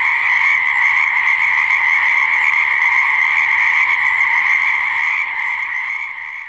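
Frogs croaking in a dense, continuous chorus, fading out near the end.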